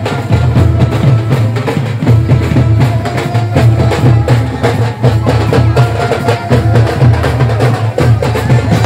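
Loud drum-heavy music with fast, continuous drumbeats and heavy bass.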